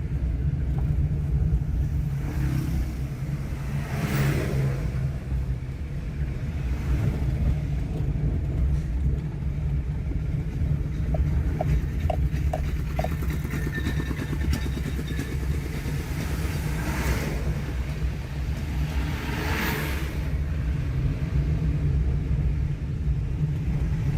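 Steady low road and engine rumble heard from inside a moving car's cabin, with a few louder swells like passing traffic and a brief run of faint ticks a little past the middle.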